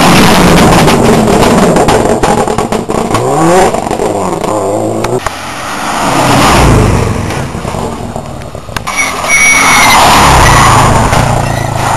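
Two rally cars pass at full throttle one after the other. The first goes by close at the start, and its engine is heard climbing and dropping in pitch through gear changes, with sharp crackling pops as it pulls away. A second car then comes up and passes close near the end.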